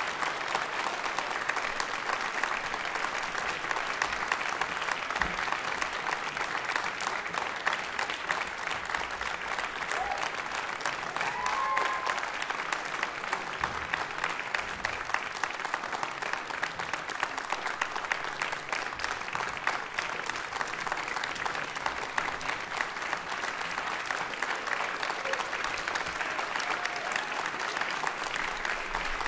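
Concert-hall audience applauding: dense, steady clapping with no break.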